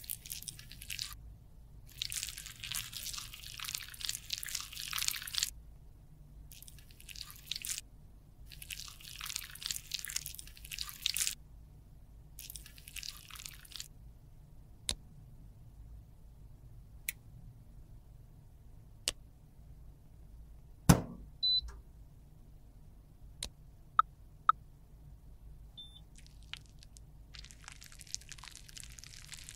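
A metal spatula scraping and pressing cream makeup into a small metal pan, in several scraping strokes of a second to three seconds each over the first half. Then a few sharp separate clicks and taps, the loudest about 21 seconds in, and a softer hiss near the end.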